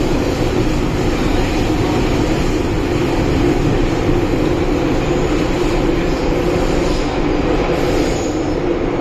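Cabin running noise of a Metro-Cammell M-Train on Hong Kong's MTR Island Line, travelling through a tunnel: a steady rumble with a steady low hum over it.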